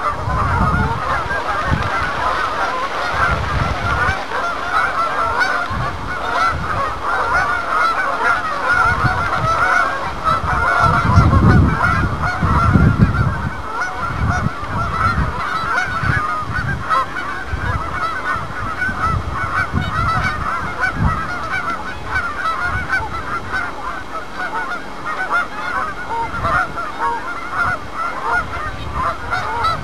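A large flock of geese honking continuously, many overlapping calls at once. A few low rumbles come through, the loudest about eleven to thirteen seconds in.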